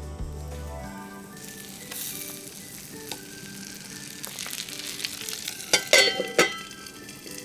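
Food sizzling as it fries in a pan over soft background music, with a few loud clatters of a utensil against the pan about six seconds in.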